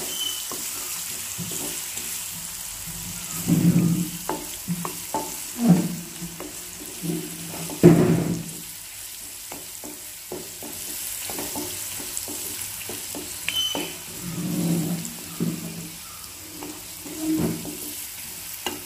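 Chopped ginger, garlic and chillies with ginger-garlic paste sizzling in hot oil in a non-stick pan, being sautéed until soft. A wooden spatula stirs them in irregular strokes that scrape the pan, loudest about eight seconds in.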